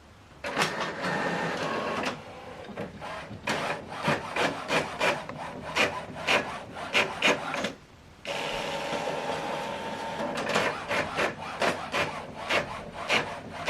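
HP OfficeJet Pro 9120e inkjet printer printing a document set for two-sided printing. The print carriage shuttles and the paper feeds with a rapid run of clicks and rubbing, stopping briefly about eight seconds in before starting again.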